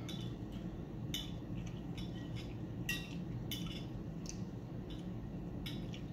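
Metal fork clinking and scraping against a ceramic plate while picking at baked catfish, about ten light, irregular clicks over a steady low hum.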